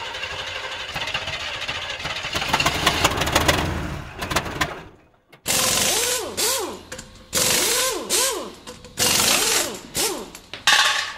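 Title-sequence sound effects: a dense, rattling rumble that builds over the first few seconds and fades out, then about five sudden swooshes, each with a tone that rises and falls, as 3D title letters fly in.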